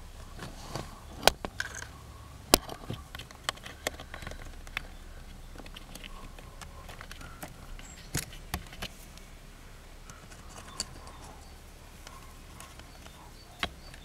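Scattered small clicks and taps from fingers handling plastic blade fuses and thin wires in a car's fuse box, over a low steady hum.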